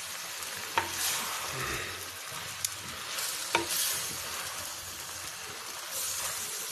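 Cluster beans frying in masala in a clay handi, sizzling steadily while a wooden spatula stirs them; the hiss swells with each stir. The spatula knocks sharply against the clay pot three times in the first few seconds.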